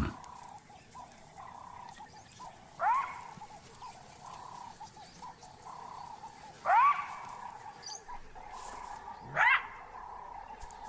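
Side-striped jackal barking: three short, sharp calls that rise in pitch, spaced a few seconds apart, over a faint steady drone.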